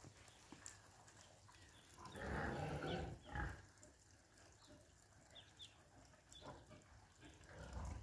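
Pigs grunting: a long, loud grunt about two seconds in, a shorter one just after, and another near the end.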